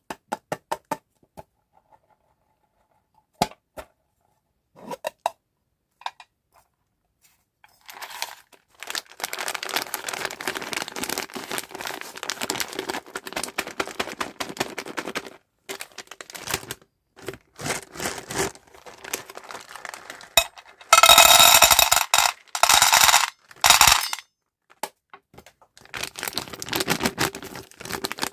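Candy packaging handled close to the microphone: a few sharp clicks and taps, then long stretches of plastic wrapper crinkling, with several loud rips as a packet is torn open a little past the middle.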